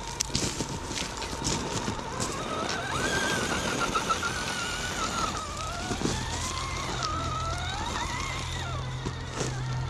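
Axial Early Bronco RC crawler's electric motor and gears whining, the pitch rising and falling as the throttle is worked. Sharp clicks come near the start and again near the end.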